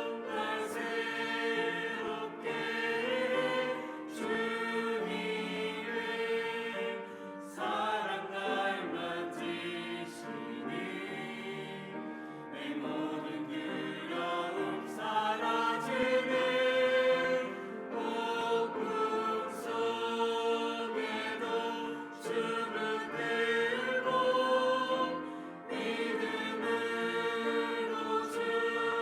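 Church choir singing a Korean worship song.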